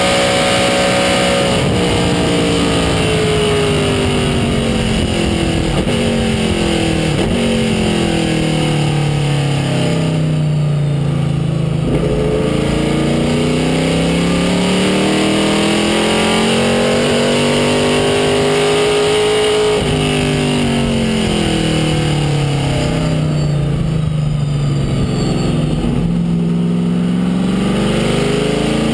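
Dekon Chevrolet Monza race car's engine, heard from inside the cockpit at race pace. The engine note falls away for about ten seconds, climbs again, drops abruptly about two-thirds in with a gear change, then falls and rises again near the end.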